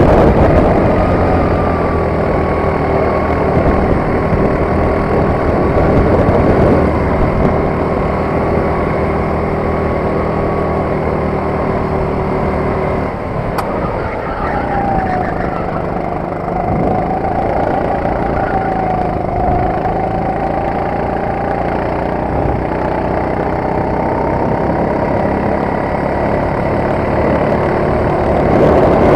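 Sodi RT8 kart's four-stroke engine running steadily under throttle, heard from the driver's seat. A little under halfway through the revs drop briefly for a tight corner, then climb again.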